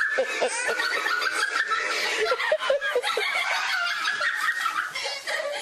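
People laughing.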